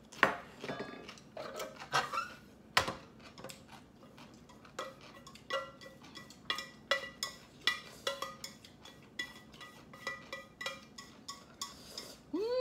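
Eating utensils clinking and knocking against a dish while noodles are eaten: a string of irregular clicks and taps, some with a short ringing tone. A rising, wavering cry begins just before the end.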